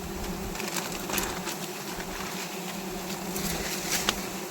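A swarm of honeybees buzzing in a steady, dense drone around a wild comb being harvested, with a few small clicks and a sharper click about four seconds in.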